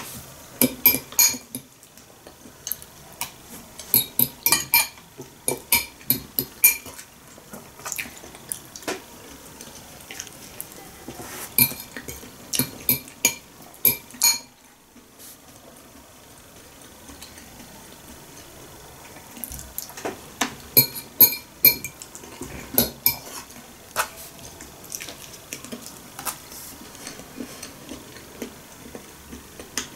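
Metal fork clinking and scraping against a glass bowl while grated carrot salad is scooped and stirred. The sharp, ringing clinks come in clusters, with a quieter stretch near the middle.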